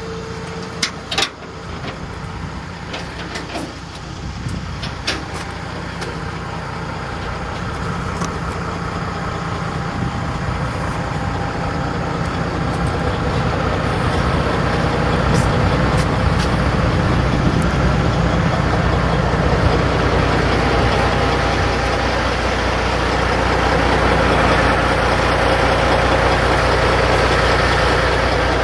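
Diesel engine of a waste-hauling truck idling, heard close to the truck's wheels and underside; the steady low hum grows louder over the first dozen or so seconds, then holds. A couple of sharp clicks about a second in.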